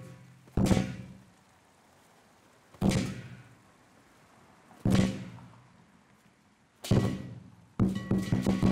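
Chinese lion dance percussion (drum, cymbals and gong) striking four single accented beats together about two seconds apart, each left to ring out. Near the end it breaks back into fast continuous drumming and cymbal clashing.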